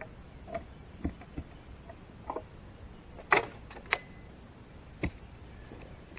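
Irregular sharp knocks and clinks, about seven in all, with the loudest a little over three seconds in.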